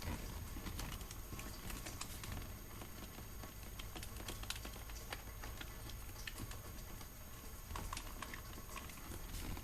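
Irregular small clicks and taps of hard plastic car door trim being pried and handled by hand.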